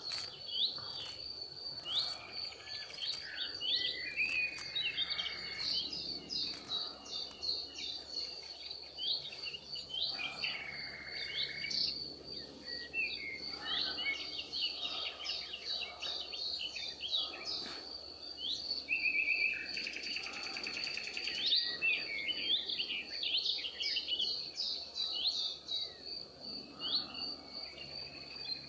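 Many birds chirping and calling in quick short notes, over a steady high-pitched insect trill that runs on unbroken underneath.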